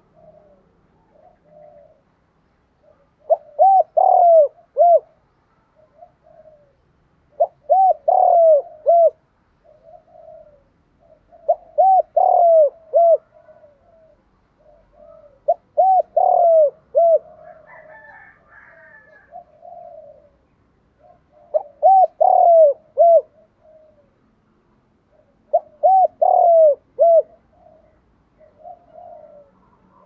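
Spotted dove cooing: six loud phrases of a few short coos each, about one every four seconds, with softer coos between them.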